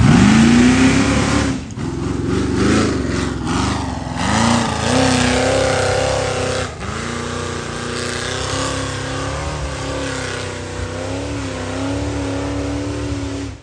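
Off-road race buggy engine revved hard, its pitch sweeping up at the start, then rising and falling again and again as the throttle is worked on the climb, with two sudden short drops in between.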